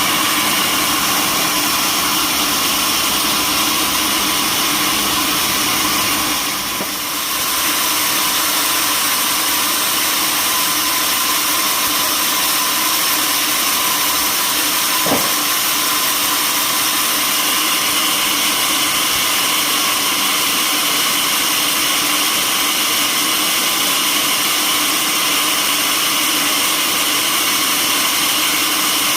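Sawmill machinery running steadily with a continuous mechanical drone, dipping briefly about seven seconds in.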